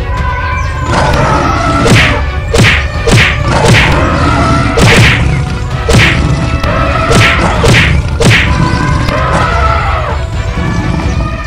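Cartoon fight sound effects: a run of about nine sharp whacks and thuds of blows landing, over background music.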